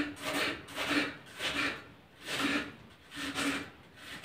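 Kitchen knife slicing an onion into small pieces on a wooden cutting board, with a stroke about twice a second, each ending in a light knock on the board.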